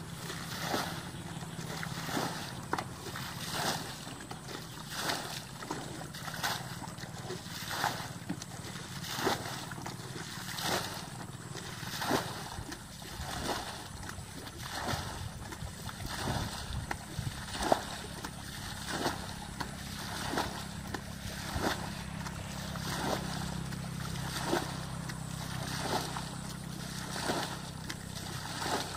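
Water being bailed out of a shallow muddy pool with a plastic bucket: repeated scoops and pours splashing, about one every second or so, over a steady low hum.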